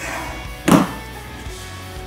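Background music with one short, dull thump about two-thirds of a second in: a wooden rolling pin knocking on the worktop as puff pastry dough is rolled out.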